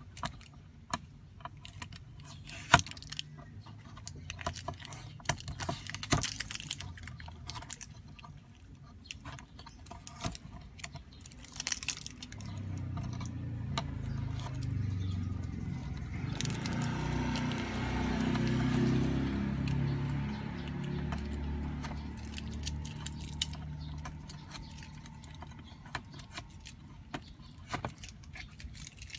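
Light clicks and small metallic rattles of hand-handled small parts and tools. A motor vehicle's low engine drone swells up about twelve seconds in and fades again some ten seconds later.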